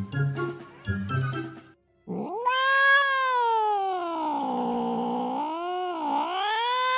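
After about two seconds of light background music that cuts off, a ginger cat gives one long drawn-out yowl lasting about five seconds. The yowl starts high, sinks slowly, then wavers down and up twice near the end. It is a threat caterwaul made while face to face with another cat.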